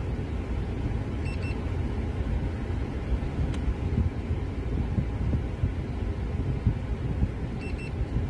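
Steady low rumble inside a car cabin, with the engine running and the air conditioning blowing out of the dashboard vent. Two short pairs of high beeps come through, one about a second in and one near the end.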